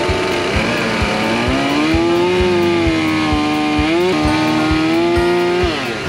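Background music with a steady beat, over a two-stroke chainsaw revving up and cutting: its pitch rises about half a second in, holds high while it cuts, and drops off near the end.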